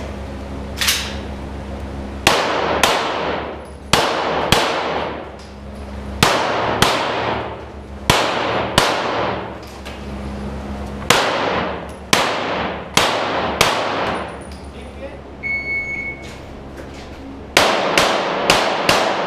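Pistol shots fired in quick strings with pauses between them, each shot echoing long in a vaulted stone cellar range. An electronic shot timer gives a single start beep about three-quarters of the way through, and a fast string of shots follows near the end.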